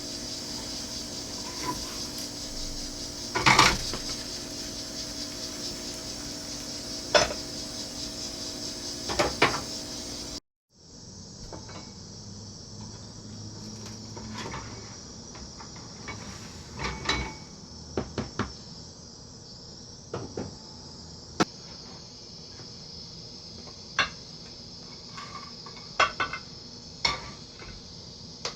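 Scattered clinks and knocks of a metal omelet pan and its glass lid on a stovetop, over a steady high hiss. The sound drops out briefly about ten seconds in, then the hiss and clinks carry on.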